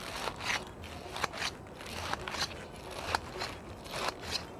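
Knife cutting through crisp lettuce leaves: a run of short crunching cuts, about three a second, unevenly spaced.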